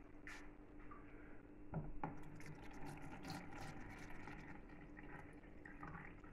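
Water poured from a glass measuring jug into a plastic food container, a faint steady trickle as the container fills, with two light knocks about two seconds in.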